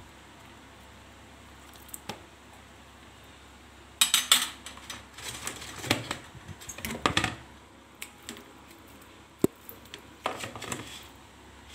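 Metal slotted spoon knocking and scraping against a plastic colander as cilok (tapioca-flour balls) are stirred, in several clusters of clatter from about four seconds in, with one sharp click near the end. A desk fan hums faintly underneath.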